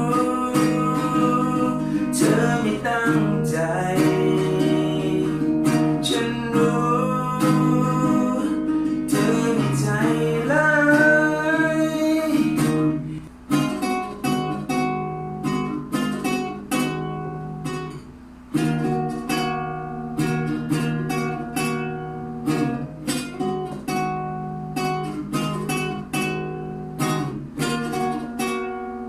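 Acoustic guitar playing an instrumental passage of a Thai pop ballad, with a held, wavering melody line over the chords for roughly the first twelve seconds. After a short drop about halfway through, the guitar goes on alone in even, rhythmic strums.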